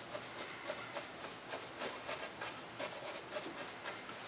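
Large round paintbrush punched repeatedly against a fascia board, stippling on paint: a run of soft, bristly dabs, about three or four a second.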